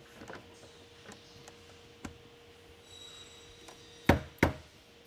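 Rubber mallet tapping an aluminum brickmould cladding piece down onto a door frame's jamb cover: two quick blows about four seconds in, after a few light handling clicks.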